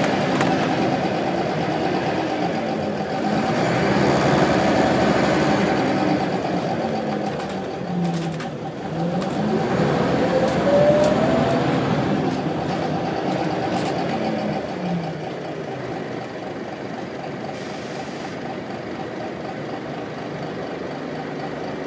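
Wright Solar single-deck bus on a Scania chassis, heard from inside the passenger saloon: the diesel engine and drivetrain run under way, their pitch rising and falling as the bus speeds up and changes gear. About ten seconds in there is a brief rising whine, and the running is quieter and steadier for the last few seconds.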